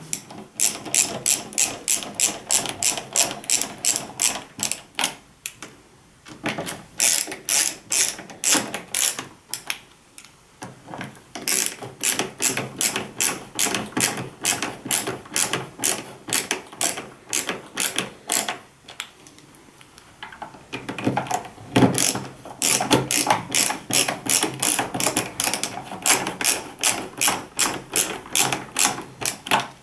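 Ratcheting hand screwdriver clicking in quick runs, about three clicks a second, as screws are driven into a plastic TV back cover. There are short pauses between screws.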